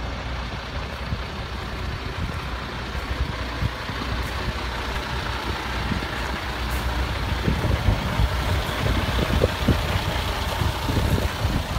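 Heavy diesel truck engine idling steadily. Wind gusts rumble on the microphone in the second half.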